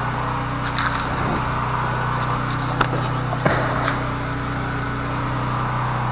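The 13-horsepower engine of a high-pressure sewer jetter running steadily: a constant low hum with a hiss over it and a few light clicks.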